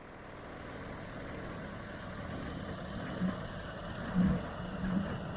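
John Deere 5055D tractor's three-cylinder diesel engine running steadily at idle, fading in at the start.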